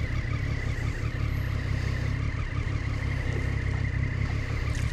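A 2014 Triumph Street Triple R's 675 cc three-cylinder engine running steadily at low revs in slow, stop-and-go traffic.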